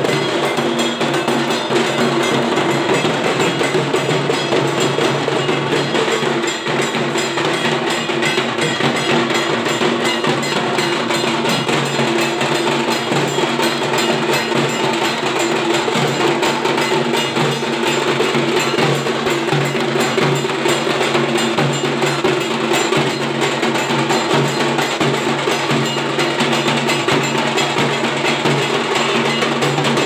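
A group of Bengali dhak drums and smaller barrel drums beaten together in a dense, continuous rhythm.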